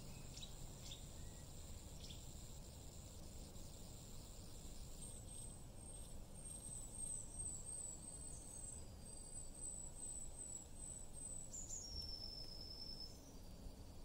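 A small songbird singing: a quick run of very high, thin repeated notes from about five seconds in, ending in a longer note that drops lower, over a faint steady low rumble.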